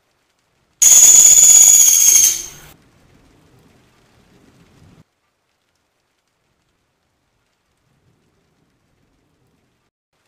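Caged pelatuk sampit, a small pygmy woodpecker, giving one loud, high-pitched, buzzy trill of about two seconds that starts abruptly about a second in and fades quickly.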